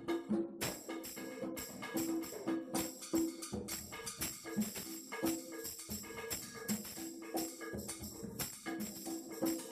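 Two drummers playing congas together in a dense, steady groove, mixing ringing open tones with sharp slaps.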